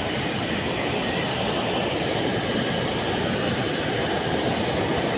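Air-conditioning unit running: a steady, even rush of fan and compressor noise.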